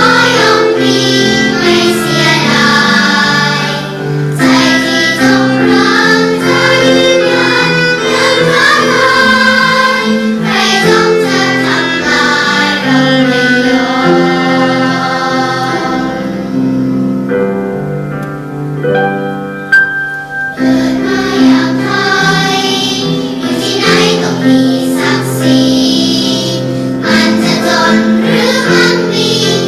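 A children's choir singing a Thai patriotic song together, with instrumental accompaniment beneath. The voices drop away for a few seconds past the middle, leaving the quieter accompaniment, then the full choir comes back.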